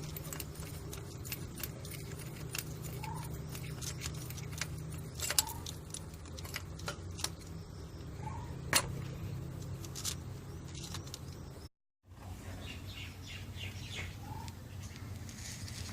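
Scattered metallic clicks and clinks of hand tools and parts over a steady low hum, with a few short, faint bird chirps.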